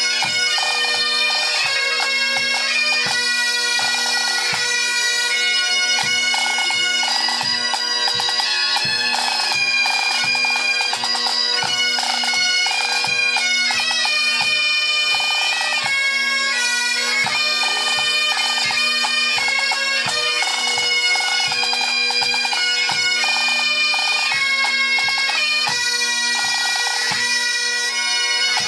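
Pipe band playing: Great Highland bagpipes sounding a tune over their steady drone, with drums, a bass drum among them, beating a steady rhythm of about two strokes a second.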